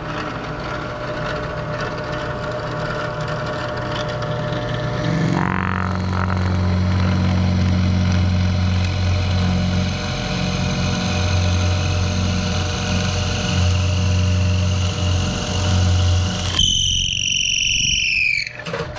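Ryobi benchtop drill press running: its motor hums steadily, and about five seconds in a loud low drone sets in, a strange sound for which the owner finds no rubbing part. Near the end the motor is switched off and winds down with a falling whine.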